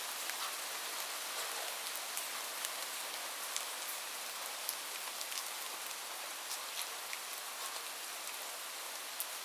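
Light rain falling steadily, a soft even hiss with scattered individual drops ticking on a surface.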